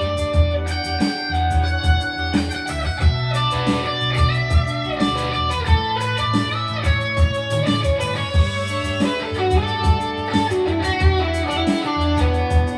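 Instrumental music led by electric guitar, over a bass line and a steady beat.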